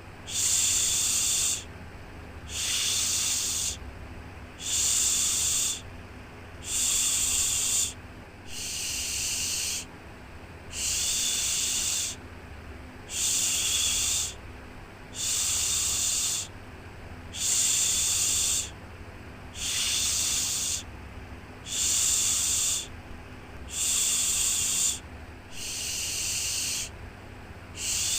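Repeated 'shhh' shushing sound for lulling a baby: a hiss about a second long, recurring about every two seconds, over a steady low rumble.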